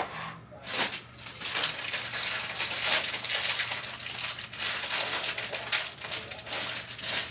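A plastic bag or food packaging being handled, crinkling and rustling in irregular, crackling bursts from about a second in.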